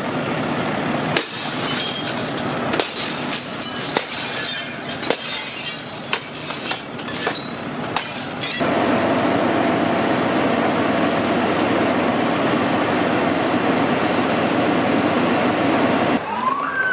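Firefighter's pike pole smashing out a house window: a rapid series of sharp knocks and crashes of breaking glass for about the first half. After an abrupt change, a steady mechanical drone runs on.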